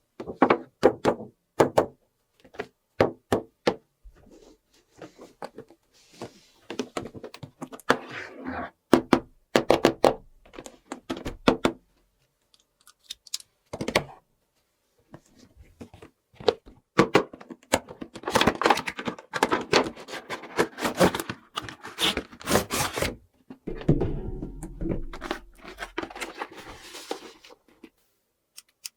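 Hard plastic toy pieces being handled. They make a string of sharp clicks, taps and knocks, with a denser run of clattering about two-thirds of the way through.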